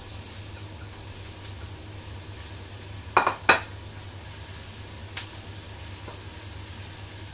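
A spatula stirring in a frying pan, with two loud clacks of the spatula against the pan in quick succession about three seconds in and a lighter tap a couple of seconds later, over a steady low hum.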